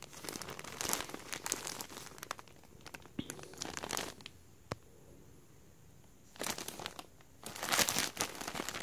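Plastic packaging of a boxer-brief multipack crinkling in bursts as it is handled and turned over, with a quiet pause of about two seconds in the middle broken by a single click. The crinkling is loudest near the end.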